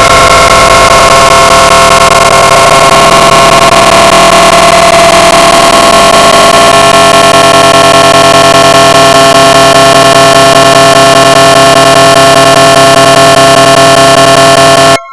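A loud, harsh edited sound effect: a steady drone of several held tones buried in dense noise, cutting out briefly near the end.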